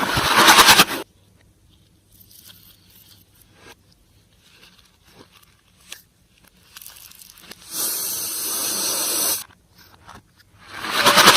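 Slime-making handling noise: a loud crackling squish in the first second, faint scattered clicks, a steady hiss lasting a couple of seconds near the end, then another loud crackling burst at the very end.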